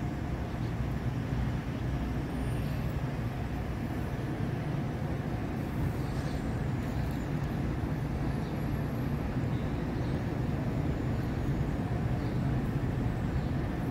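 Steady low hum and rumble of a large prayer hall's ventilation, with its wall-mounted fans running.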